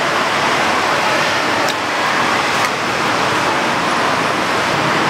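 Steady rushing background noise throughout, with faint clinks of a spoon on a bowl a couple of times.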